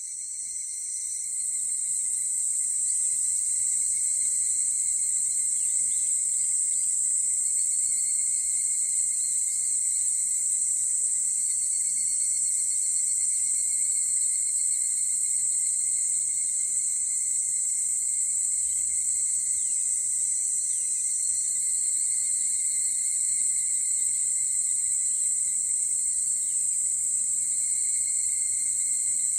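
A chorus of many higurashi (evening cicadas, Tanna japonica) calling together, merging into a steady high-pitched ringing that swells in over the first couple of seconds.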